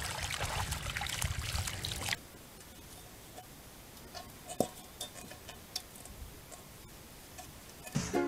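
Water splashing and sloshing as a Border Collie wades through a muddy pond, cutting off after about two seconds. After that the sound is quiet apart from a few faint knocks.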